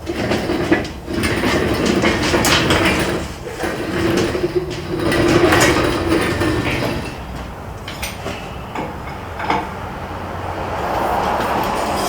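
A heavy barrel scraping and grinding as it is slid out of a pickup truck bed over the tailgate, with a droning drag sound through the first half and a few sharp knocks.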